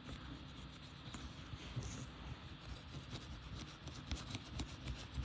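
Faint scratching and rubbing in many small quick strokes as an iPhone XR's insides are scrubbed clean with alcohol.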